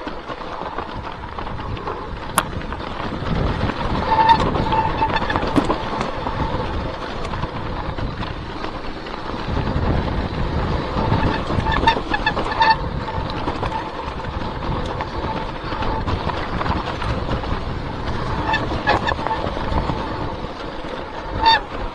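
Mountain bike rolling downhill over a leaf-covered, stony trail: a rumble of tyres and wind with rattles and clicks. Short honking squeals from the brakes come several times.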